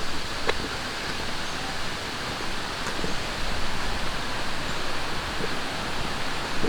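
Steady rushing of a mountain stream, an even hiss with a faint click about half a second in.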